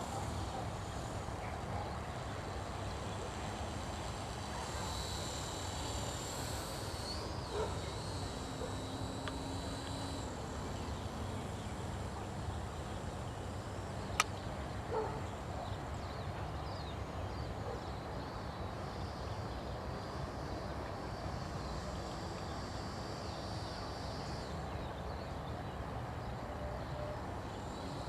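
Faint high whine of a distant electric RC plane's motor, fading in and out, over a steady low rumble of wind on the microphone. A single sharp click comes about 14 seconds in.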